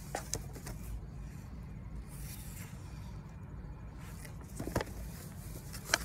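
Paper pages of a hardcover picture book being handled and turned, a few brief rustles about half a second in and again near the end, over a steady low outdoor rumble.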